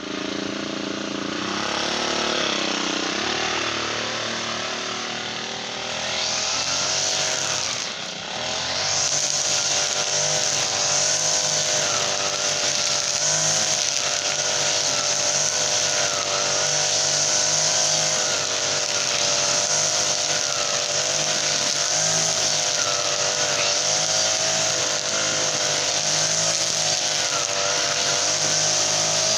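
Brush cutter's Honda GX35 four-stroke engine running at high speed. Its pitch shifts over the first few seconds and dips briefly about eight seconds in, then holds steady.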